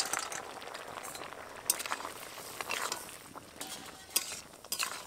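Vegetables being stirred into a bubbling curry in a metal kadai: a steady hiss from the simmering pot with a handful of sharp clinks of a spatula and utensils against the metal pan.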